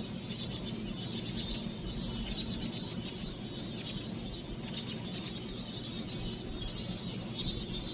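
Cicadas buzzing in a steady, high, shimmering chorus that holds without a break.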